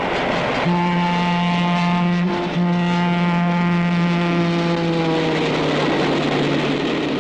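Diesel locomotive's air horn sounding a long blast about a second in, with a brief break partway through, its pitch sagging near the end as the train passes. The rumble of the moving train runs underneath.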